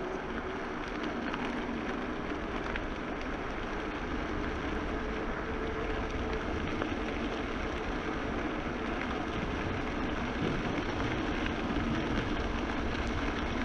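Wind rushing over a GoPro microphone and the tyres of a 29er hardtail mountain bike rolling steadily as it is ridden downhill; the noise grows a little louder in the last few seconds.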